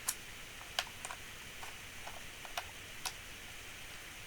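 A handful of light, sharp clicks and taps at irregular intervals, about eight in four seconds, over faint room hiss.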